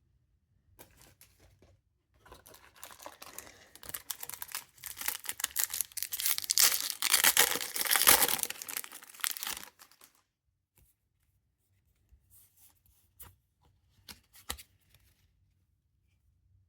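Foil Pokémon booster pack wrapper crinkling and being torn open: a dense crackling rustle that builds and is loudest partway through, then stops, followed by a few light clicks and rustles.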